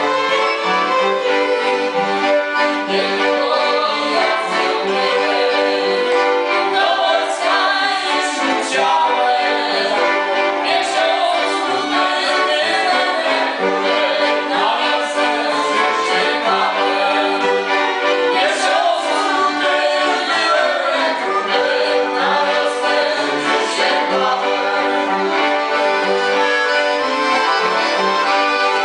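Accordion, fiddles and a cello playing an instrumental tune together, unbroken.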